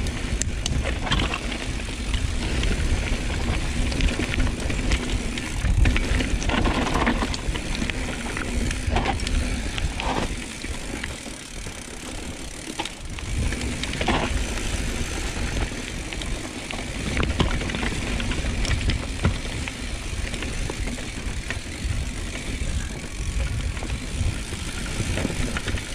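Mountain bike riding down a dirt downhill trail: tyres running over the dirt and the bike rattling over bumps, with many short knocks and a steady low rumble of wind on the microphone.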